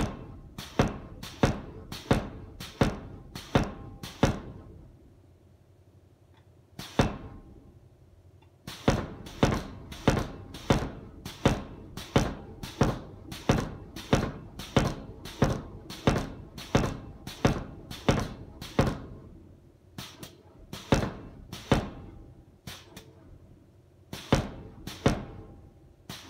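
Homemade pneumatic forging power hammer (air hammer) striking a glowing steel bar on the anvil, steel on steel. Single heavy blows come at an even pace, about 0.7 s apart, in runs broken by short pauses.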